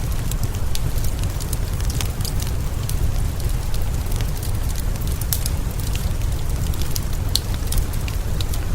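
Wood fire crackling in a fireplace, with many irregular sharp pops and snaps, over a steady hiss of rain and a constant low rumble.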